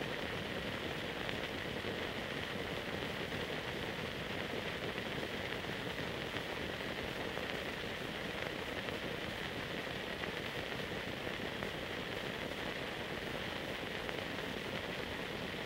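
Steady hiss of the transfer of a silent archival film, with no sound track: only tape and film noise, unchanged across the cut.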